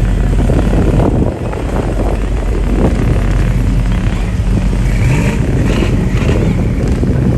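Engines of parade vehicles running as they pass, a steady low drone with a short rise in pitch about five seconds in.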